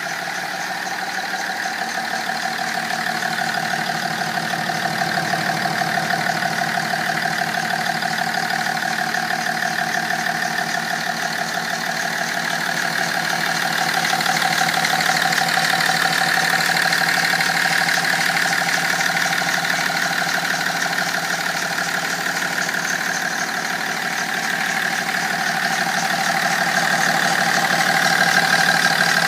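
BMW 330d E46's straight-six common-rail diesel idling with its engine cover removed, a steady diesel clatter that swells and eases slightly in loudness.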